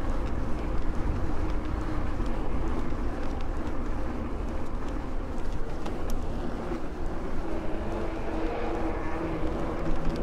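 Mountain bike riding along an asphalt street: tyres rolling with a steady rumble and a faint hum, which grows a little stronger near the end.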